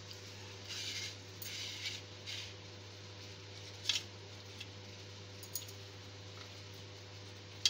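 Kitchen knife cutting through soft steamed dumplings and scraping on a paper plate: several short, faint, scratchy strokes.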